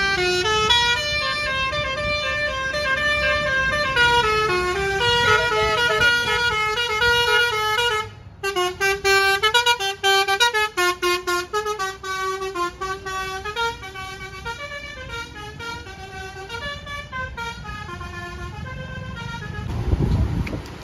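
Basuri "telolet" multi-tone bus horn playing a melody: held, stepped notes for the first eight seconds, then after a brief break a fast run of short staccato notes that gradually softens. A low rumble swells briefly near the end.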